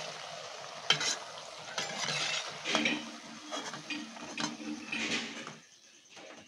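Jalebis frying in hot oil in a metal kadai: a steady sizzle, with the metal slotted skimmer clinking and scraping against the pan several times as it turns them and lifts them out. The sizzle cuts off suddenly near the end.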